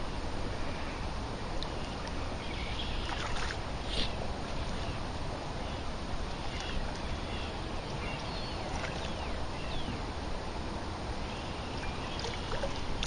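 Steady outdoor background noise with scattered short, high chirps and a brief tick about four seconds in.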